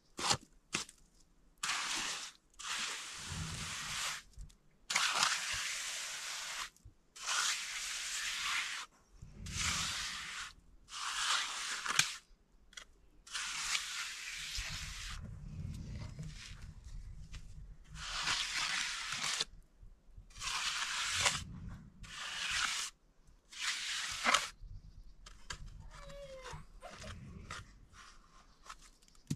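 A flat steel finishing trowel scraping across wet cement as the slab is smoothed, in repeated sweeping strokes about a second long with short pauses between them.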